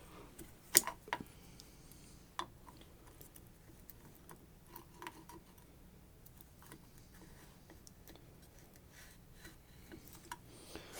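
Scattered small clicks and taps of hand tools on metal as the last epoxied screw is worked on the angle grinder, with the sharpest click about a second in and a few fainter ticks after.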